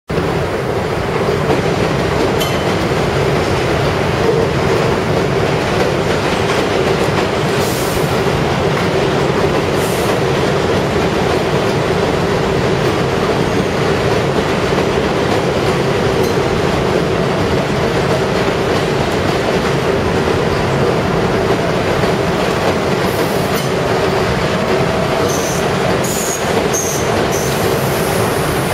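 New York subway train running past on elevated track: a continuous steady rumble of steel wheels on the rails, with a few sharp clicks and some short high-pitched wheel squeals near the end.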